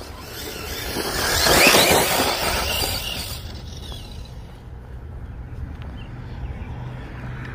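Arrma Typhon 6S brushless electric RC buggy driving past on grass: the motor's whine and the tyre noise swell to a peak about a second and a half in, then fade away.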